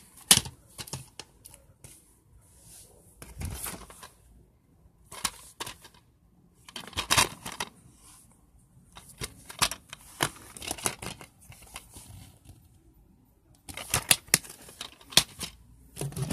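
Plastic DVD cases being picked up and handled, clicking and rustling in short bursts with quiet gaps between, along with the camera being handled close by.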